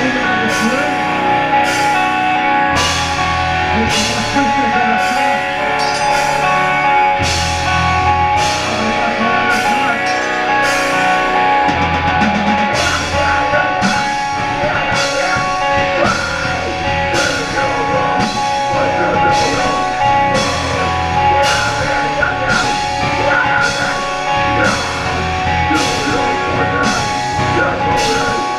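A metalcore band playing live: distorted electric guitars and bass over a drum kit keeping a steady beat, with heavy low chugs that start and stop every few seconds.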